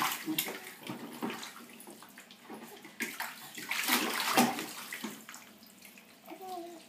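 Bath water splashing and sloshing in a plastic baby bathtub as an infant moves and kicks in it, in two stretches: at the start and again about three seconds in. A brief squeak comes near the end.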